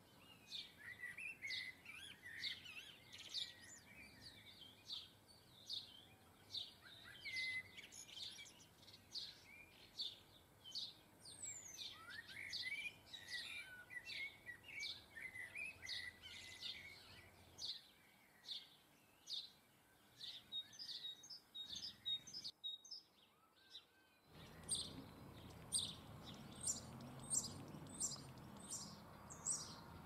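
Small garden songbirds chirping and twittering: a steady run of short, high repeated chirps, with stretches of lower, rapid twittering. About three-quarters of the way through the sound briefly drops out, then returns with a steady hiss beneath the chirps.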